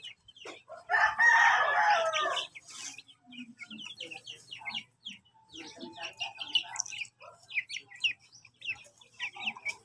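A chicken gives one loud drawn-out call about a second in, lasting about a second and a half, while young chicks peep in many short high chirps through the rest of the time.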